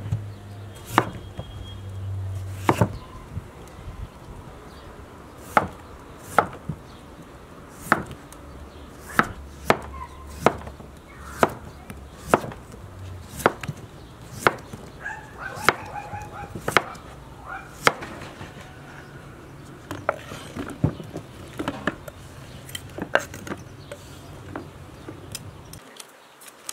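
Chef's knife slicing a peeled raw potato on a wooden cutting board: a series of sharp knocks as the blade strikes the board, about one a second and unevenly spaced.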